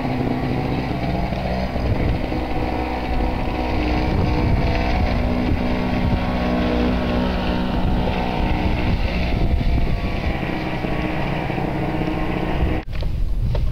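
A car engine running steadily. Near the end it cuts off abruptly, and a rougher rushing noise with many short crackles follows.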